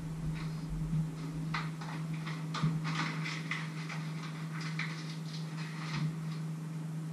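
A loose run of light clicks and taps, as of small things being handled, over a steady low hum; the clicks thin out near the end.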